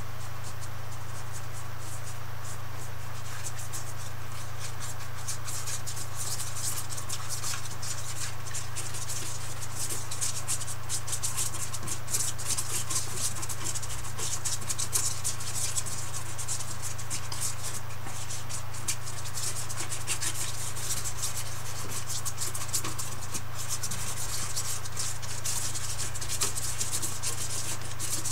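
Paintbrush scratching and scrubbing against a canvas in quick, continuous strokes, over a steady low hum.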